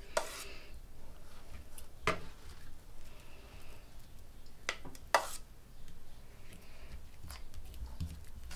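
A spoon scooping and spreading thick cooked kissel over rhubarb: several sharp clicks and scrapes of the spoon against the pot and baking pan, the loudest about five seconds in, with soft squishy sounds of the thick jelly.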